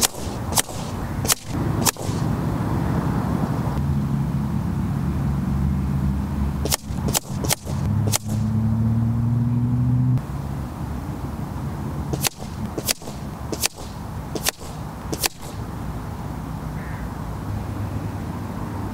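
Sub-12 ft-lb .177 PCP air rifles firing slugs: about a dozen sharp cracks in short strings of three to five, a fraction of a second to a second apart. Between about 4 and 10 seconds in, a low engine hum runs under the shots, rises slightly in pitch and then cuts off suddenly.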